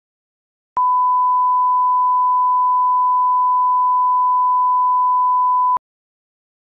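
A steady single-pitched test tone, of the kind laid at the head of a broadcast package, held evenly for about five seconds, switching on and off abruptly with a small click at each end.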